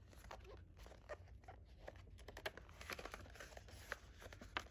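Faint, irregular rustling and light clicking of paper and plastic as album pages and photo cards are handled and unwrapped, with a few sharper crinkles near the end.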